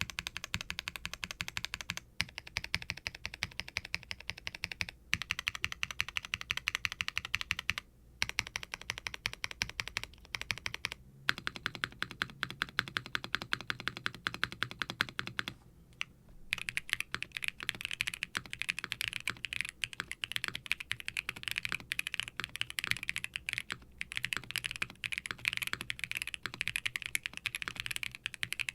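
Fast, continuous typing on a custom mechanical keyboard: a silicone-cased HIBI June R3 with an FR4 plate, Kailh Lunar linear switches (POM housings, POK stem, 45 g springs, factory lubed) and GMK ABS keycaps, giving a sound the builder calls deep and poppy. The stream of keystrokes breaks off in short pauses every few seconds.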